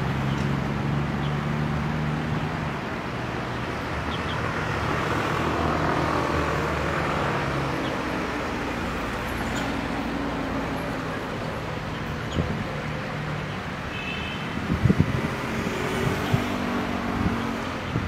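Steady road-traffic noise with a low engine hum, over the hiss of a shallow stream running among rocks; a few short knocks about three-quarters of the way through.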